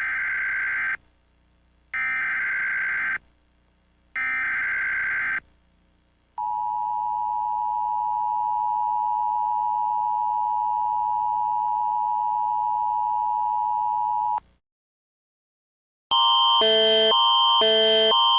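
Emergency Alert System (EAS) broadcast signal. Three roughly one-second bursts of screeching digital SAME header data come about two seconds apart. Then the two-tone attention signal holds steady for about eight seconds and cuts off suddenly. After a short silence, near the end, a different electronic alert begins, stepping back and forth between several pitches.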